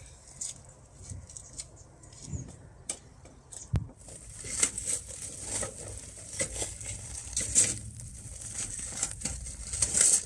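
Wood fire crackling and popping in a fire pit as split logs and kindling catch from a firelighter. The pops are sparse at first and become dense and constant about four seconds in.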